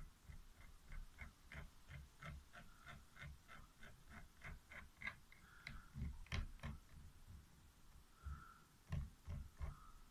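Faint, even clicking, about three clicks a second, for the first five seconds, then a few louder knocks around six seconds and again around nine seconds in: small hand work on the wooden crankshaft casing and shaft of a homemade compressor.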